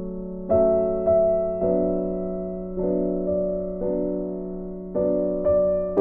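Background music of soft piano chords, a new chord struck every half second to a second, each ringing and fading.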